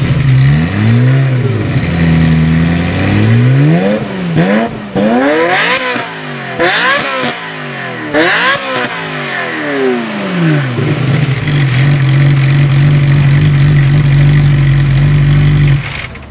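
Ferrari F355 3.5-litre V8 with a Capristo exhaust revving at standstill. It swells up and down a few times, then gives several quick, sharp blips, then holds a steady note for about five seconds.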